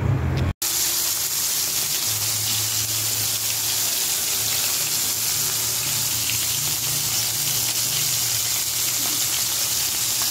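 Flour-coated basa fillets frying in hot oil in a pan: a steady sizzle that starts suddenly after a brief dropout about half a second in.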